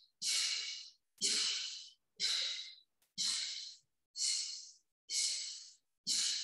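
A woman breathing hard from exertion: a heavy, hissing breath about once a second, seven in all.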